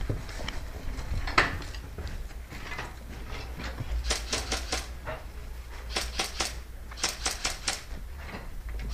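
Airsoft guns firing three short, rapid strings of shots, four to six cracks each at about seven a second, about four, six and seven seconds in. Under them runs a steady low rumble of movement and handling noise.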